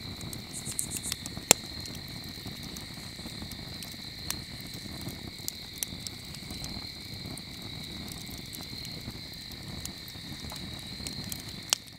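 Crickets chirping at night in a steady high trill over a low background rumble, broken by a few sharp clicks, the loudest about a second and a half in.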